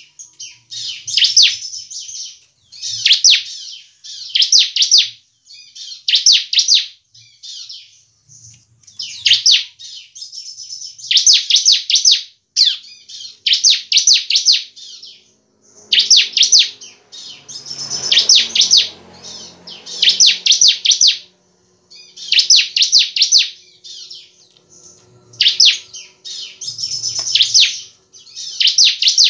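Bar-winged prinia (ciblek) singing in loud, repeated bursts, one about every second and a half to two seconds. Each burst is a quick run of sharp, high notes.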